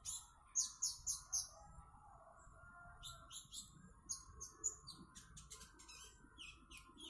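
Purple-throated sunbird (kolibri ninja) singing in the rapid 'trotol' style: quick runs of very high, sharp chirps, thinning out briefly about two seconds in, over a faint steady hum.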